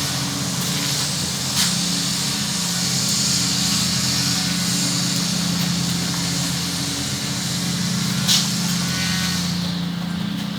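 Running water spraying steadily while hair is washed under it: an even hiss with a low steady hum beneath. Two brief knocks, about one and a half seconds in and near the end.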